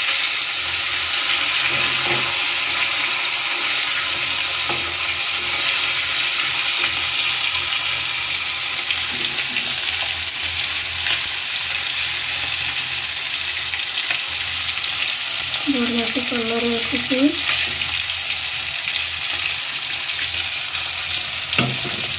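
Fish pieces shallow-frying in hot oil in a wok, giving a steady sizzle. A steel spatula scrapes and knocks against the pan now and then as the pieces are turned.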